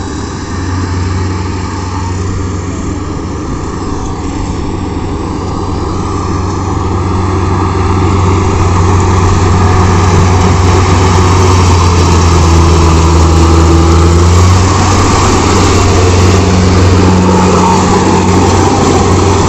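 Engine of a rice combine harvester running steadily as it cuts and threshes paddy: a continuous low hum under mechanical clatter. It grows louder from about eight seconds in.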